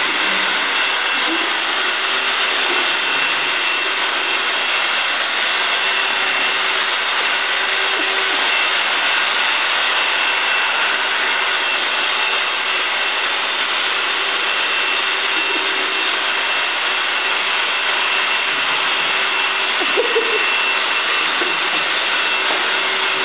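Electric upright vacuum cleaner running steadily, a constant high whine over the rush of its motor and airflow.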